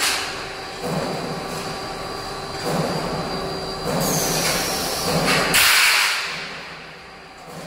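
Steel strut channel being dragged along the rollers of a roll forming machine's run-out table: a string of metallic scraping and rolling rushes with knocks, loudest about five and a half seconds in, then fading. Under it runs the steady hum of the roll forming machine.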